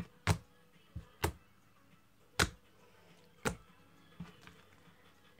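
Slime being squeezed and poked for ASMR, giving about six sharp pops and clicks at uneven intervals.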